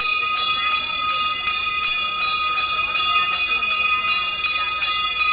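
Aarti hand bells ringing continuously in an even rhythm of about two to three strokes a second, each stroke renewing a sustained metallic ring. Faint voices of the crowd sit underneath.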